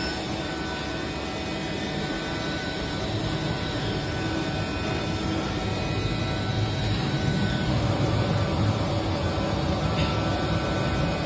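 CNC machine tool running: a steady mechanical hum with several thin, steady whining tones over it, swelling a little in the second half.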